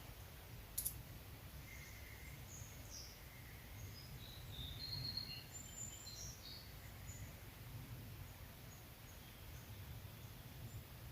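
Faint birdsong: scattered short, high chirps and whistles over a low, steady outdoor rumble, with one sharp click just under a second in.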